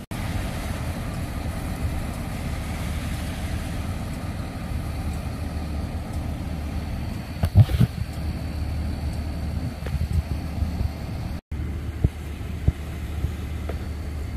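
Vehicle engines running with a steady low rumble, as at a roadside with traffic and idling emergency vehicles, with a few brief thumps about halfway through.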